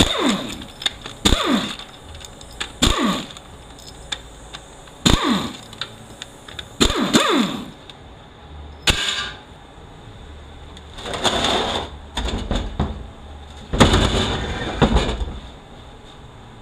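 A power tool spinning out the 13 mm front pump bolts of a 4L80E automatic transmission, in a string of short whirs that fall in pitch as the tool runs down, with sharp clicks and metal clatter between them. Two longer, noisier runs come near the end.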